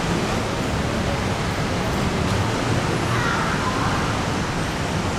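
Steady wash of dense city road traffic, cars and motorcycles running at low speed, blending into a constant low hum without breaks.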